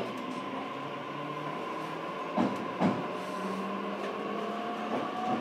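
Onboard running sound of a JR Kyushu BEC819 series battery-electric train in its motor car: a steady hum of the inverter and traction motors, with tones rising slowly as the train gathers speed. Two sharp knocks come a little past two seconds in.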